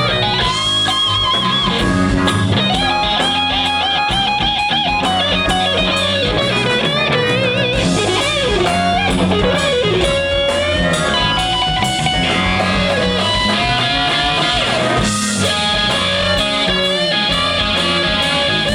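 Live rock band playing an instrumental passage: an electric lead guitar plays sustained notes with string bends and vibrato over bass and drums.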